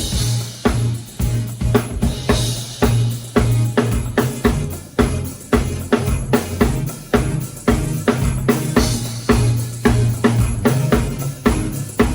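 Drum kit playing a steady beat, with sharp snare and bass-drum strikes about three times a second over low held notes that shift in pitch.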